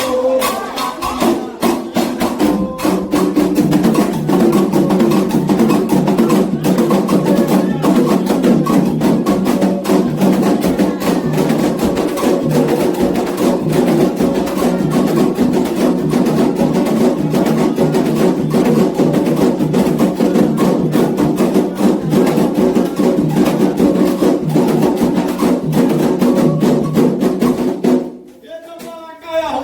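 Candomblé ritual music: atabaque hand drums played in a steady fast rhythm with a struck agogô bell keeping time, under a chorus of voices. The music stops abruptly near the end.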